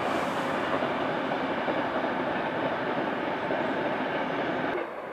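Express passenger train passing: a steady rushing rumble of wheels on rails that drops away abruptly near the end.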